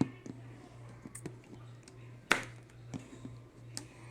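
Scattered sharp clicks and taps of hands handling a cardboard tool box, about six in all, the loudest a little past two seconds in.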